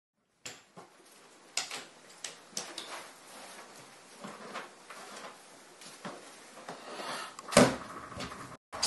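Plastic storage bins knocking and scraping as a strap is worked over them on a bicycle trailer: scattered clicks and knocks, with one louder thump near the end.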